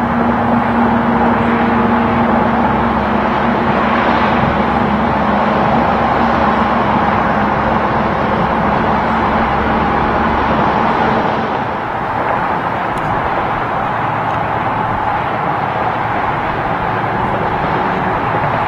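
Highway traffic with a semi-truck passing: a steady rush of tyre and engine noise, with a low engine hum that drops away about eleven seconds in.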